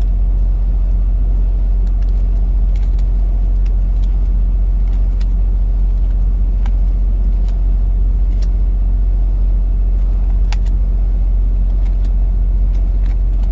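Steady low rumble throughout, with about eight faint sharp clicks scattered across it.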